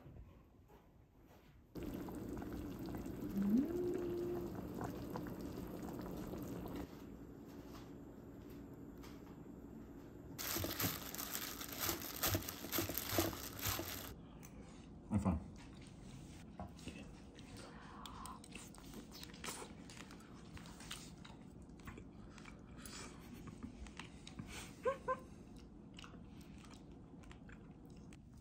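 Food-handling sounds: for about four seconds, a loud rustle and crinkle as plastic-gloved hands toss chive salad in a steel bowl. Before it comes a few seconds of steady low hum with a short rising tone. After it come a single thump and scattered light clicks and taps.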